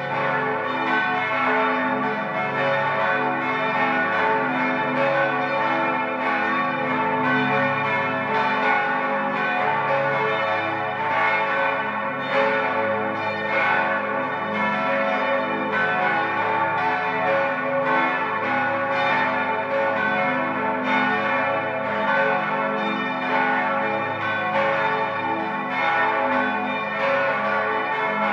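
Five swinging church bells ringing together in a steady full peal, their strikes overlapping without a break. They are the abbey's bells 2, 4, 5, 6 and 8, tuned to A3, C♯4, E4, F♯4 and A4.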